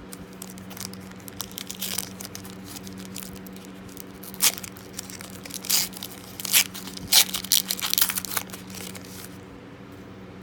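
Foil trading-card pack wrapper being torn open and crinkled, in a series of sharp crackles in the middle and latter half, over a steady low hum.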